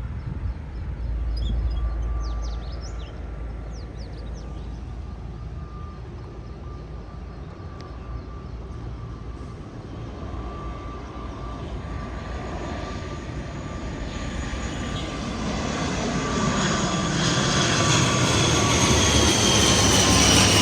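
Airliner on landing approach flying low overhead, its engine sound building steadily and loudest near the end, with a steady whine and tones that bend down in pitch as it comes over.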